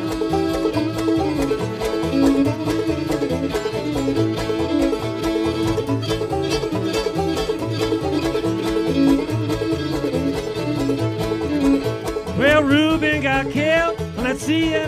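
Old-time string band playing an instrumental break, with string instruments over a steady walking bass; about twelve seconds in, a high melody line enters with pitch slides.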